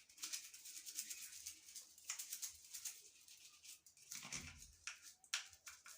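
Faint, irregular scratchy scrubbing strokes as the plastic edges of an electric shower head are washed by hand, with a soft bump about four seconds in.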